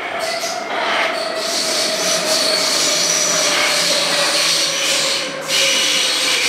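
Older blue-and-white Munich U-Bahn train pulling into an underground station: a loud rush of wheels on rail that builds in the first second, with a whine falling slowly in pitch as the train slows and a faint high squeal above it.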